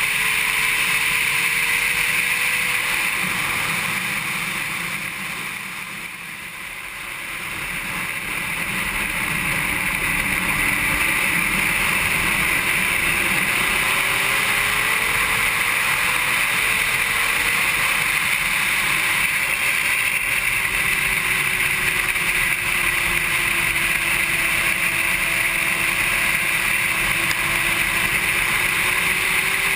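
Honda CBR600RR inline-four engine at speed on track, heard muffled under heavy wind rush, its pitch sliding up and down as the revs change. About six seconds in the sound grows quieter for a few seconds, then comes back up.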